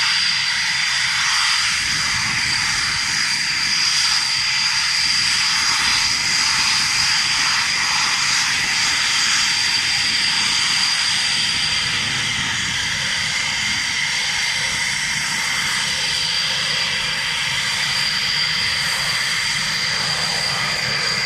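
Eurofighter Typhoon jets' EJ200 turbofan engines running at taxi power: a steady high-pitched whine over an even rush of jet noise, holding level without spool-up.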